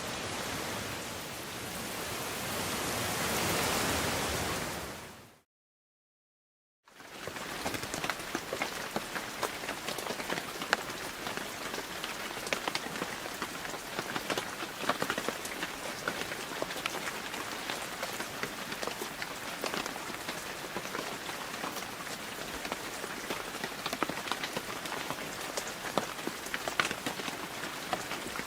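A smooth, even rush of steady rain that swells and then fades out, a moment of complete silence, then a different rain recording: a steady patter full of distinct close drops ticking on a surface.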